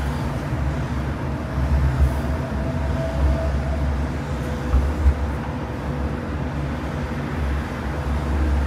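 Sheffield Supertram tram running, with a steady low rumble, a faint held whine and a couple of brief knocks.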